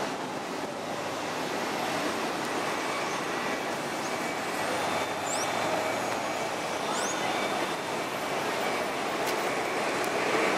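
City street traffic: a steady wash of road noise from buses and cars passing. Two brief, high rising chirps come about five and seven seconds in.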